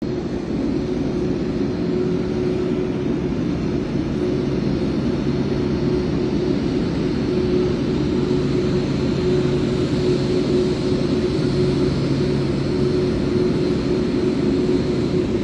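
Jet airliner engines, a Boeing 787 Dreamliner's, running steadily: a constant rumble carrying a steady hum and a faint high whine.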